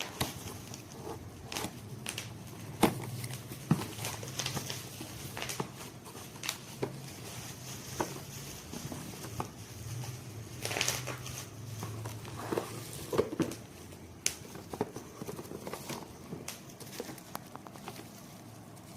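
Scattered clicks and light knocks, like handling noises, over a faint low hum that comes and goes. No blender motor is running.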